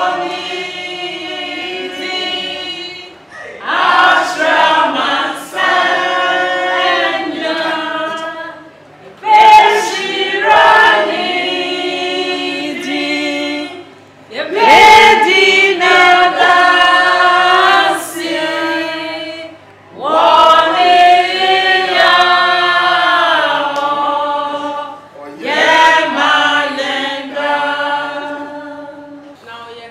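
A group of voices singing together unaccompanied, in phrases of about five seconds, each starting loud and fading before a short pause, with no instruments.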